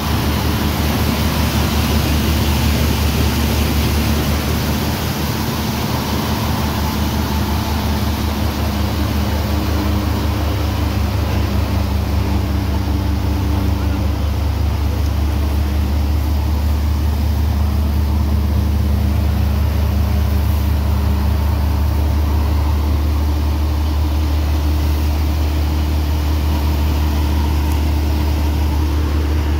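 Mahindra Dharti Mitra thresher driven by a Swaraj tractor's diesel engine, running steadily at working speed while crop is fed through it: a constant loud machine drone with a deep hum.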